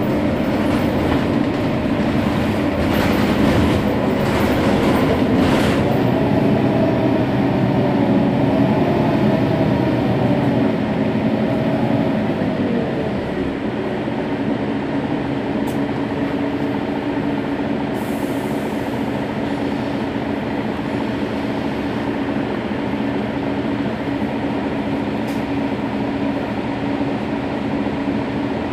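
Mercedes-Benz Citaro bus's rear-mounted OM 457 hLA straight-six diesel idling while the bus stands at a stop, a steady hum with a few tones. A few short bursts of hiss come in the first six seconds. About halfway through, the engine note wavers, then settles slightly quieter.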